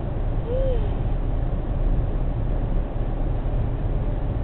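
Steady road and engine rumble inside a car cabin at highway speed. About half a second in, a short tone rises and falls once, like a brief hoot.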